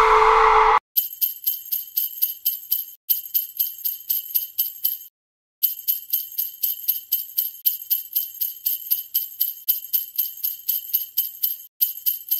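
Small bells jingling in an even rhythm, about five shakes a second, bright and high with nothing deeper underneath, broken by three short dead-silent gaps. A loud held tone cuts off just before the jingling starts, under a second in.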